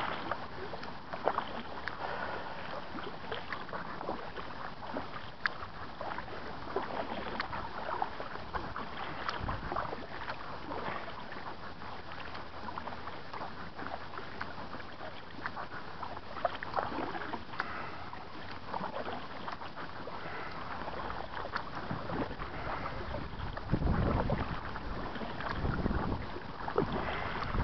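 Kayak paddle dipping and pulling through river water: repeated small splashes and drips over water noise, a little louder near the end.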